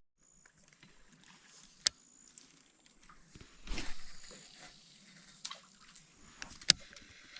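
Quiet outdoor river ambience with faint, thin, high bird calls, a soft swell of water-like noise about four seconds in, and two sharp clicks, one about two seconds in and one near the end.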